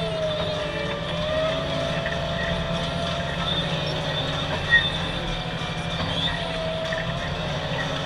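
Deutz 7250 tractor running steadily while pulling a Kuhn plough, with a whine that wavers in pitch and one sharp knock about halfway through.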